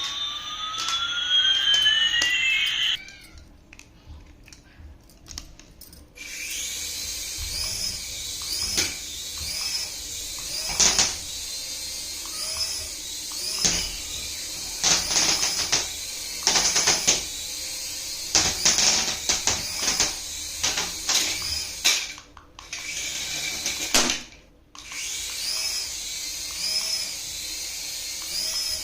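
A small electric toy motor whines steadily, with a pattern that wavers about once a second and scattered clicks and knocks. Before it, for the first few seconds, an electronic rising tone and a falling tone cross each other.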